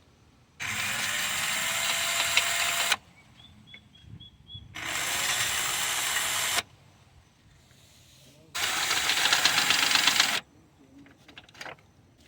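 Cordless power wrench running three times for about two seconds each, spinning up with a rising whine as it backs out bolts.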